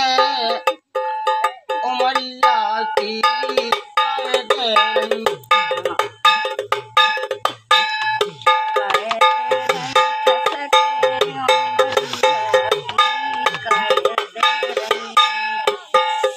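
A steel canister played as a hand drum, struck in a quick, even rhythm with a metallic ring, as the instrumental break of a Bundelkhandi folk song, with a steady held tone underneath.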